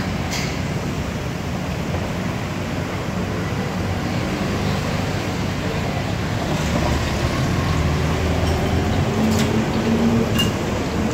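Crab and egg poured into a wok of hot oil, starting to deep-fry over a steady low rumble of the fire and surroundings; the frying grows louder from about six seconds in. A few sharp metal clinks of the wok utensils.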